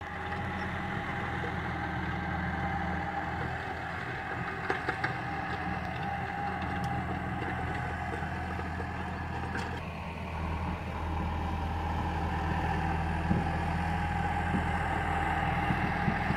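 Modern farm tractor's diesel engine running steadily as it works across a field, growing a little louder after about eleven seconds. A few brief clicks come about five seconds in.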